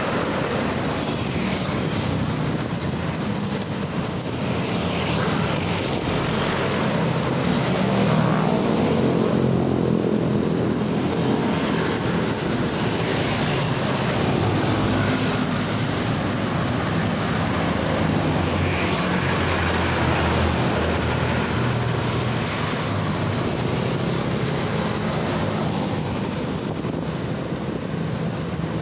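Motorcycle engine running while riding in traffic, its note shifting a little with speed, over steady tyre and wind noise and the sound of other vehicles passing.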